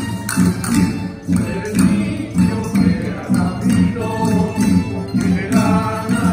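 A rondalla of plucked strings (bandurrias, lutes and guitars) strumming a lively tune to a steady beat; voices come in singing about four seconds in.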